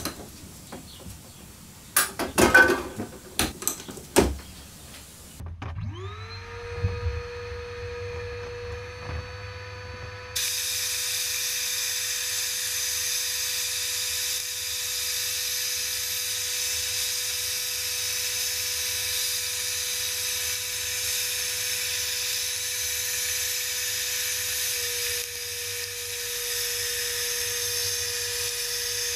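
A few sharp knocks of parts being handled. Then a small high-speed electric tool motor spins up to a steady high whine. About five seconds after that, a steady hiss joins it, typical of the tool working a metal part.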